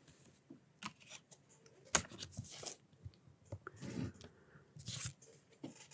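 A stylus faintly tapping and scratching on a tablet screen while writing, in scattered short clicks with the sharpest tap about two seconds in.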